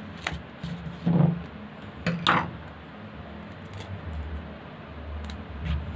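Hands handling small craft parts on a tabletop: a few brief clicks and rustles, spaced a second or so apart.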